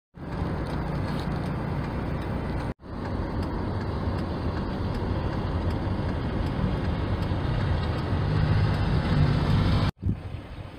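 Compact cab tractor with a front-mounted snowblower running while clearing snow, a steady engine drone with a low hum that swells a little toward the end. The sound cuts out sharply twice, about three seconds in and near the end.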